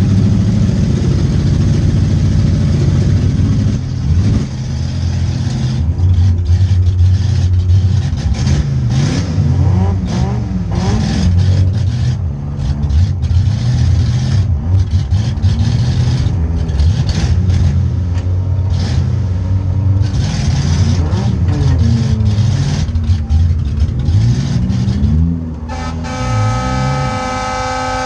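Demolition derby car's engine running hard, its revs rising and falling again and again as it drives. Near the end a horn starts sounding one steady chord.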